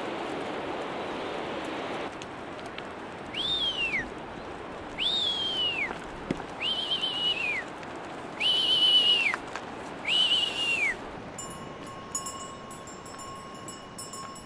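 A herder whistling five times to drive a flock of sheep and goats, each high whistle about a second long, rising quickly, held, then dropping off, about a second and a half apart, over a steady rushing background.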